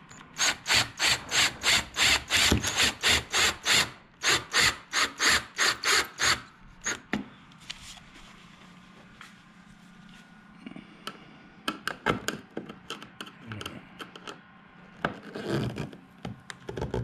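Cordless drill driving self-tapping screws into a fiberglass side skirt: a rasping sound that pulses about three or four times a second for some six seconds, with a short break partway through. After that come scattered light clicks and scrapes of handling.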